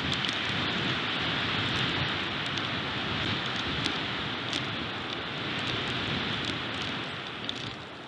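Strong wind rushing through the pines and buffeting the nest-cam microphone: a steady, rising-and-falling noise, with a few faint ticks.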